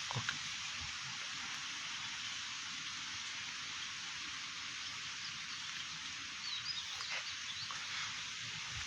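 Steady, high outdoor hiss, with a soft knock at the start and a few short, faint chirps about six to seven seconds in.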